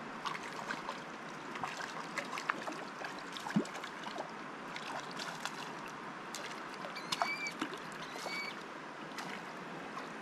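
River water flowing steadily with irregular small splashes and clicks. Two short high chirps come near the end.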